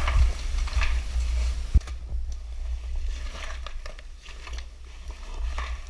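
Scuffing and crunching of a caver moving over mud and rock, with small knocks and one sharper knock about two seconds in, over a steady low rumble.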